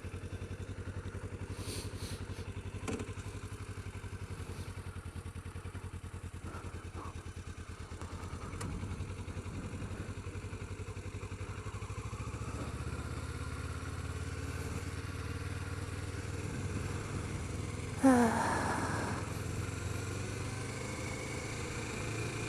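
2008 Kawasaki Ninja 650R's parallel-twin engine running steadily under way. About eighteen seconds in comes a brief, loud tone that falls in pitch.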